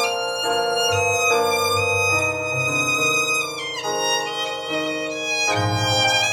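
Background music with a violin carrying the melody in wavering, held notes over lower accompaniment, with a sliding drop in pitch about three and a half seconds in.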